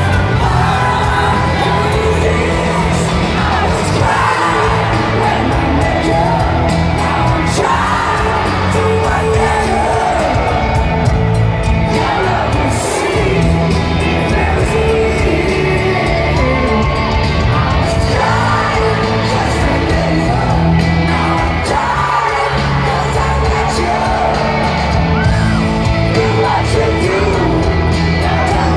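Live rock band playing a power ballad over a stadium sound system, a male lead singer's voice carrying the melody, with crowd voices mixed in.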